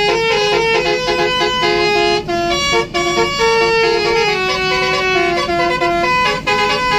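Basuri telolet horn on a bus playing a tune: a set of air-horn trumpets sounding notes that change every fraction of a second, often two or more at once.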